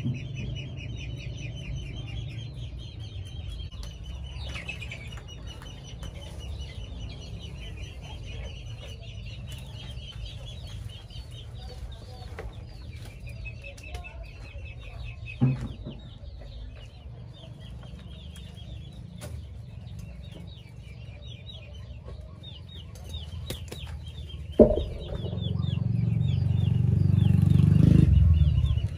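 Farmyard chickens clucking, over a steady high chirping that repeats quickly. There are two sharp knocks, and a loud low rumble near the end.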